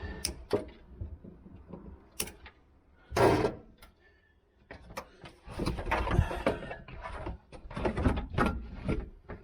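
Irregular clicks, knocks and rustling of car interior parts being handled and fitted, with a louder scrape about three seconds in and a busier run of handling noise in the second half.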